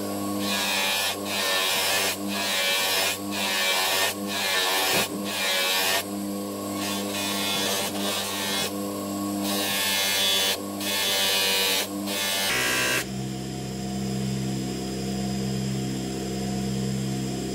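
Bench polishing motor running a buffing wheel with a steady hum, while steel pliers are pressed against the spinning buff in short strokes, each a brief rasping hiss, about one a second. From about twelve seconds in the strokes stop and only the motor's hum remains.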